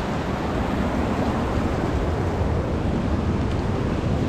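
Steady rushing of a small creek's flowing water, with wind rumbling on the microphone.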